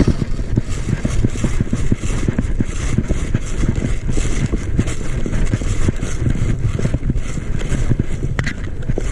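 Heavy rumbling and buffeting on a body-worn camera microphone, broken by many quick knocks and thumps, as the wearer moves at pace with gear jostling.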